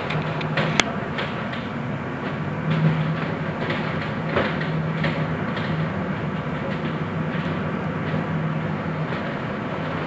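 Steady rumble and hum aboard a container ship running through heavy monsoon seas, with scattered sharp clicks and rattles, the strongest about a second in and near three seconds in.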